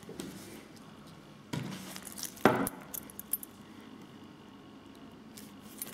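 Handling noise of wristwatches being picked up and moved: a few sharp clinks and knocks, the loudest about two and a half seconds in, with lighter taps near the end.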